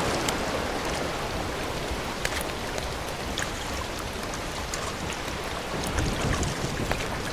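Water lapping and splashing steadily against the rocks at the shoreline, with small scattered clicks and drips.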